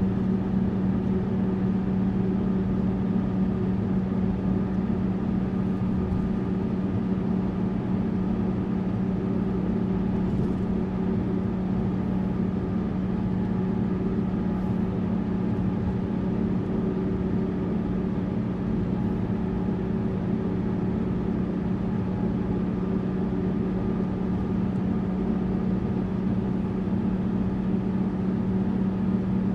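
Tourist bus cruising, its engine running with a steady, even drone over a haze of road noise that holds level throughout.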